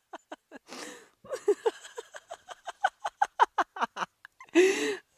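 A woman laughing in quick, breathy bursts of about five a second, with a longer drawn-out laugh near the end.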